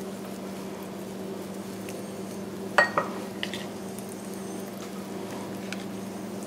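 Two quick clinks of kitchenware, about three seconds in, with a few fainter ticks after, over a steady low hum.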